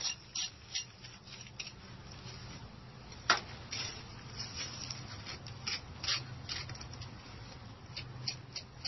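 Irregular small scrapes and clicks of hand work against a stone-veneer wall, with one sharper click about three seconds in, over a low steady hum.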